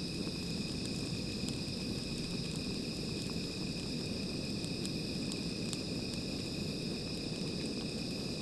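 A continuous chorus of night insects, crickets, holding several steady high-pitched trills over a constant low background hiss, with faint scattered ticks.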